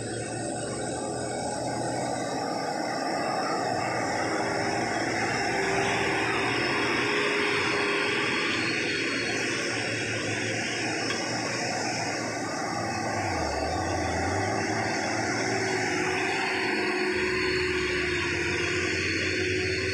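Diesel engines of Hino 500 dump trucks pulling up a dirt incline one after another: a steady heavy engine drone with a held whining tone over it that rises a little as each truck comes past.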